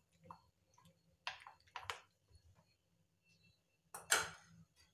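A spoon working thick semolina-and-curd batter in a glass bowl: a few short, soft scrapes, then a louder brief scrape or knock about four seconds in.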